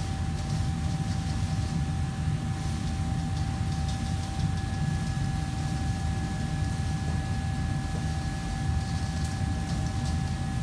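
Steady low rumble of commercial kitchen machinery with a constant thin whine, joined by a second higher whine about four and a half seconds in. Faint clinks of utensils at the counter sound over it.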